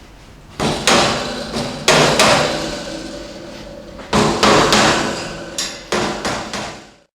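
Rubber mallet striking the corners of a steel wire shelf to seat it onto the tapered sleeves on the poles: about ten sharp blows in clusters of two or three, each followed by a short ringing rattle of the shelf.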